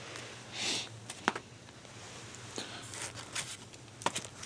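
Comic books being handled and shuffled: light rustling and crinkling, with a couple of sharp taps about a second in and near the end.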